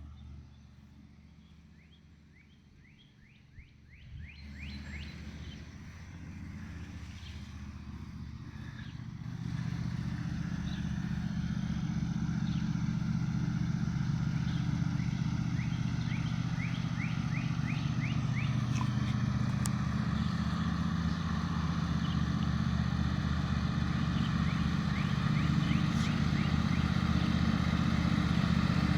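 Riding lawnmower engine running steadily, starting faint and growing louder about four seconds in and again near ten seconds, then holding at a steady level.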